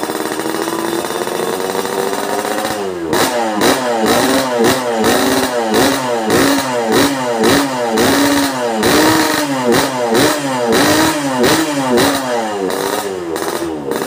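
Yamaha RX King's 135cc two-stroke single-cylinder engine, fitted with an aftermarket exhaust, running at a steady speed for about three seconds. It is then blipped over and over, the revs rising and falling about twice a second.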